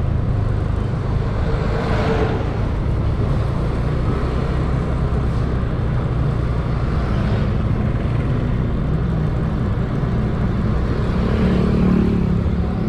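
Motorcycle engine running on the move, under heavy wind rush on a helmet-mounted camera's microphone, with brief swells of noise about two and seven seconds in. The engine note rises near the end.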